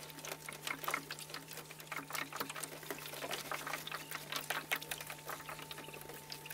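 Dense, irregular light clicking and tapping, several clicks a second, over a faint steady hum.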